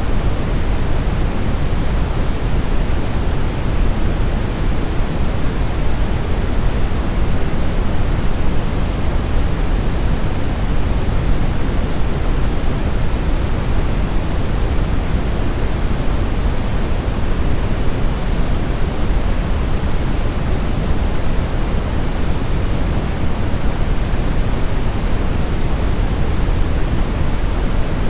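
Brown noise: a steady, even rushing hiss, heaviest in the low end and thinning out toward the highs, with no changes.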